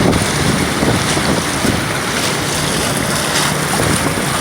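Heavy rain pouring down in a steady hiss, mixed with traffic moving through water on a flooded road.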